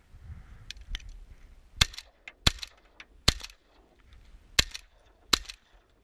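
Five shotgun shots fired in quick succession at ducks flying over, spaced under a second apart except for one longer gap, with a few lighter sharp sounds before the first shot.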